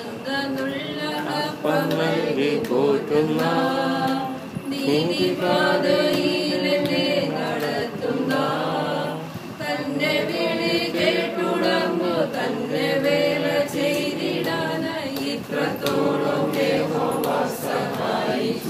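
A small group of mostly women's voices singing a song together, unaccompanied, in long sung phrases with held notes and short pauses between lines.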